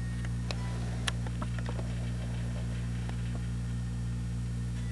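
Steady low electrical hum, with scattered faint clicks and ticks from a handheld camera being handled while it refocuses.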